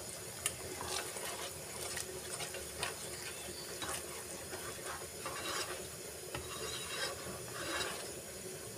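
Slotted spoon stirring thick creamy gravy in a non-stick kadhai, repeated wet swishing and light scraping strokes against the pan with a few small clicks.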